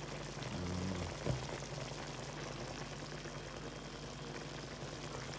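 Curry chicken simmering in a pot, a steady soft bubbling, with one light knock about a second in.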